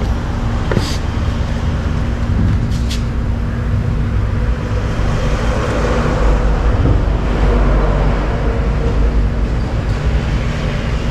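Steady low rumble of road traffic, with a constant hum and a few faint clicks.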